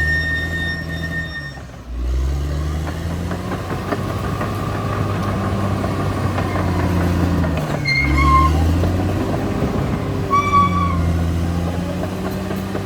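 Caterpillar D6R XL bulldozer's diesel engine running under changing load. Its note dips and climbs again about two seconds in and again around eight seconds. Short high-pitched tones sound near the start, around eight seconds and around ten and a half seconds.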